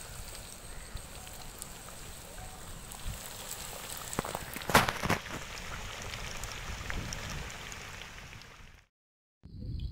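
Battered chicken pieces deep-frying in hot oil in an iron kadai: a steady sizzle full of small crackles and pops, with one louder crack about halfway through. The sound cuts out briefly near the end.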